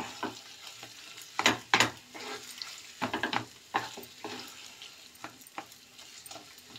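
Wooden spatula scraping and pressing mashed boiled potatoes around a non-stick kadhai of hot ghee, with irregular scrapes and knocks against the pan over a faint sizzle of the frying. The strokes come thickest in the first few seconds and thin out towards the end.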